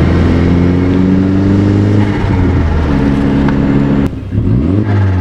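Volkswagen Jetta's turbocharged 1.8T four-cylinder being revved with its diverter valve blocked off, a mod meant to make the turbo flutter. The revs are held, then about four seconds in the throttle is snapped shut and the note drops away in falling sweeps before picking up again. That is the moment the mod is meant to make the turbo flutter.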